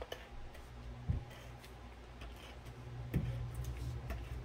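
Light clicks and taps from card pieces being handled on a work table, with two slightly louder knocks about a second in and about three seconds in, over a steady low hum.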